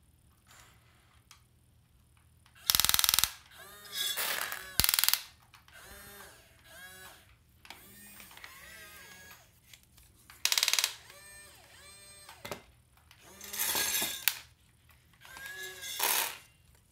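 Double E remote-control toy excavator at work: its small electric motors whine, rising and falling as the arm moves, while the bucket scoops and dumps dry beans that rattle into a plastic tub in several loud bursts.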